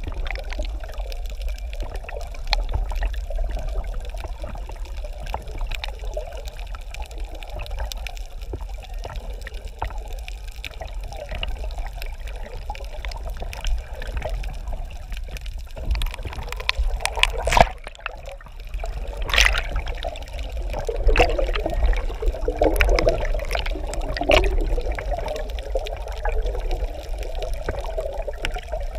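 Water heard from just below the sea surface: a steady rushing, bubbling wash with a deep rumble, dotted with many small sharp clicks. There are a couple of louder knocks a little past the middle.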